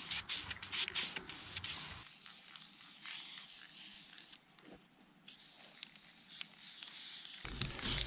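Aerosol spray-paint can hissing as paint is sprayed on, with a high insect trill in the first two seconds; the sound drops quieter about two seconds in.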